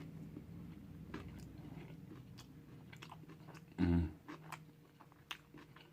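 A person chewing food close to the microphone, with many small wet mouth clicks and smacks. About four seconds in there is one short low hum.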